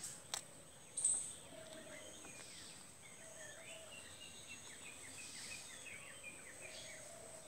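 Outdoor ambience of small birds chirping, with a steady high-pitched whine underneath. A single sharp click comes about half a second in, and a brief louder high chirp about a second in.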